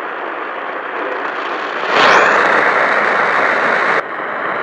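Radio static: a steady hiss that suddenly gets much louder about two seconds in, holds for about two seconds, then drops back abruptly.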